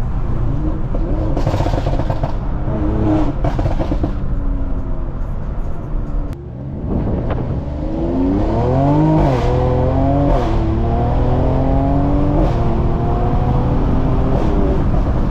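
Mercedes-AMG C43 engine and exhaust under hard acceleration, the revs climbing and dropping back at each upshift. Each shift comes with a short crack, and there is a brief lift-off about six seconds in.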